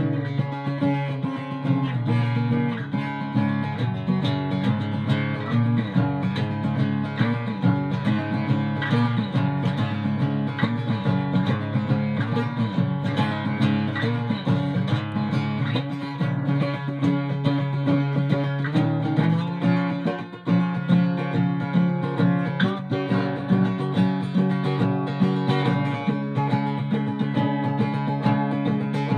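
Ovation Applause AE27 guitar played acoustically, unplugged: an instrumental run of strummed and picked chords, with a brief break about twenty seconds in.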